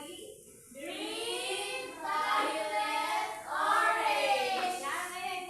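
Young children singing together, sustained sung notes with a brief pause about half a second in.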